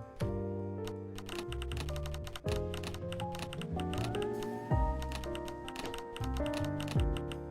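Instrumental music of many short pitched notes over dense clicks, with a synth note gliding upward about four seconds in.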